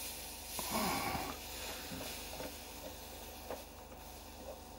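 Soldering iron tinning a copper battery terminal lug: faint hissing of the flux under the hot tip, loudest briefly about a second in, with a few faint clicks.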